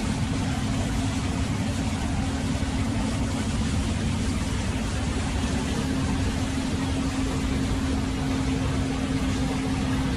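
Tractor engine running steadily with an even, unchanging hum.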